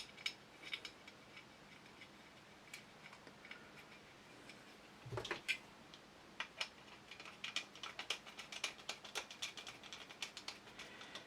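Small metal parts clicking and ticking faintly as a screwdriver drives a small screw into a shotgun's action. There is a dull knock about five seconds in, then quick, close-set ticking over the last few seconds.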